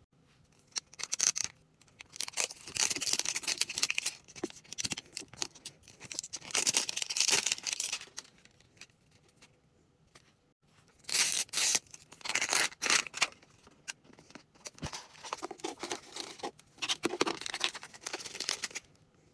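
Plastic shrink-wrap being torn and peeled off a toy capsule ball, then crinkling plastic, paper and foil packaging being unwrapped and handled, in irregular rustling bursts with a short pause about halfway through.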